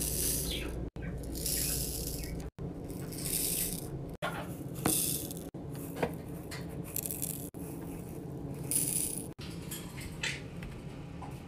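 Diamond painting drills, tiny plastic beads, rattling and pattering as they are poured and shaken in a ridged plastic sorting tray and small storage boxes. It comes as a run of short clips, each a few seconds long, separated by abrupt cuts.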